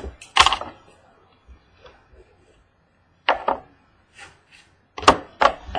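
A trading-card box being handled and opened, its cardboard and wrapping giving short, sharp crackles and taps: one about half a second in, a couple about three seconds in, and two close together near the end.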